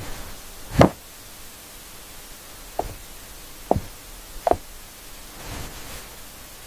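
Steady hiss with four short, dull knocks, the first about a second in and the loudest, the others spread through the middle.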